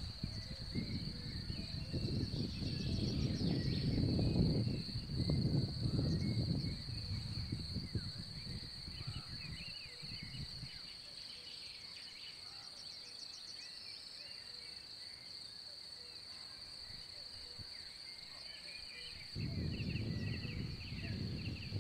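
Outdoor ambience: wind gusting on the microphone, strongest a couple of seconds in and again near the end, over a steady high-pitched whine, with scattered birds chirping.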